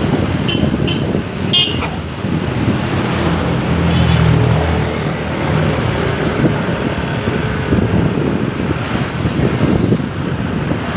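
Road traffic going by with wind on the microphone; a heavy vehicle's engine is loudest about four seconds in, and a few short high horn beeps sound in the first two seconds.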